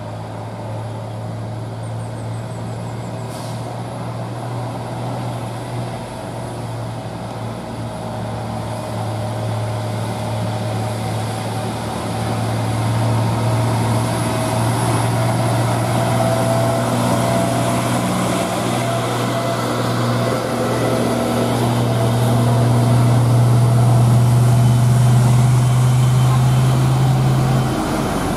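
Diesel engines of heavy Isuzu trucks, the nearest an Isuzu Giga FVM245, labouring slowly up a winding road. A steady low drone grows louder as they approach and is loudest near the end, then cuts off.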